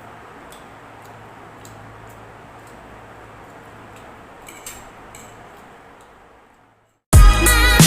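Soft ticking, about two ticks a second, over a steady low hiss and a faint hum. It fades out about six seconds in, and after a brief silence music starts abruptly near the end.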